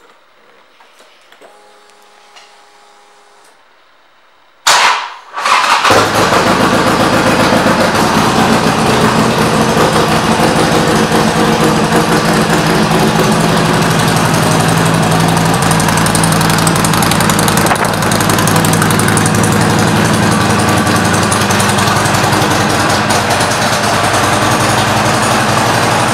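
2009 Harley-Davidson XR1200's air-cooled 1200 cc V-twin with Vance & Hines pipes starting up about five seconds in with a sudden burst, then idling steadily and loud.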